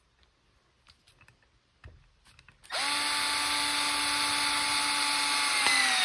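Milwaukee M12 brushed screwdriver driving a 2-inch screw: a few faint handling clicks, then the motor starts about three seconds in and runs with a steady whine. Near the end its pitch drops a little.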